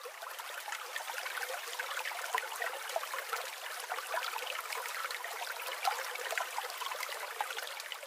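Steady trickling, bubbling water like a small stream, swelling up over the first second.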